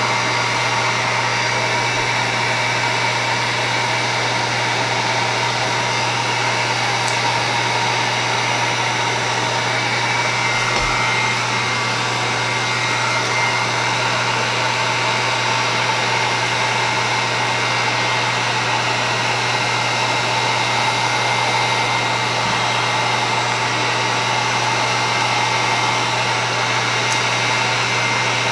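Handheld electric heat gun running steadily: a constant rush of blown air with a steady hum.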